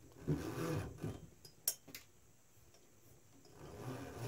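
GT2 rubber timing belt being fed by hand around a pulley and through the printer frame: a rustling rub, two sharp clicks close together about a second and a half in, then more rubbing building up near the end.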